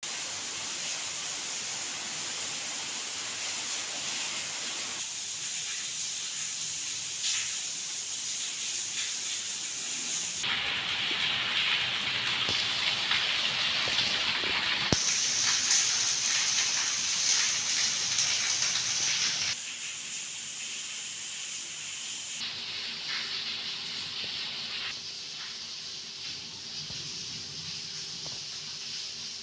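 Steady hiss of rain falling, loudest through the middle stretch, with abrupt jumps in level where the clips change. A faint steady hum joins near the end.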